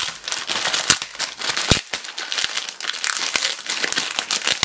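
Shiny foil blind-bag packet crinkling under hands pressing and handling it, a dense run of crackles and small snaps.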